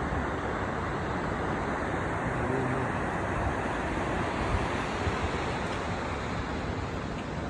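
Steady rush of a fast, rocky mountain river.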